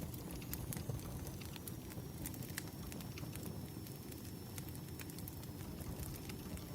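Wood fire burning with irregular sharp crackles and pops over a steady low rumble, and a faint thin high whistle underneath.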